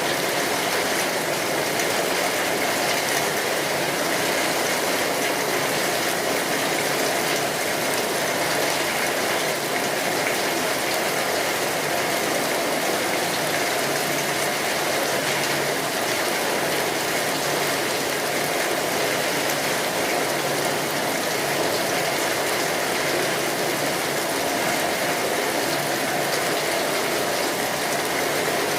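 Steady heavy rain pattering on a tin roof, with the dense clicking crackle of a wood fire mixed in.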